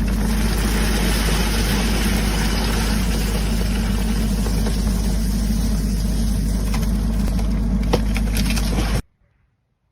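Loud, steady running of an engine-driven machine, a deep rumble under a dense mechanical hiss, cut off suddenly about nine seconds in.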